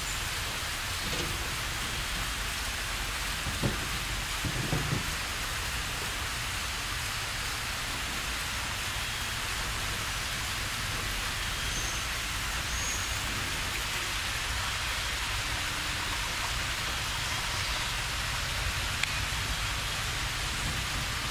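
Steady rushing hiss of a small waterfall, with a couple of soft knocks in the first five seconds and a few faint short high chirps about halfway through.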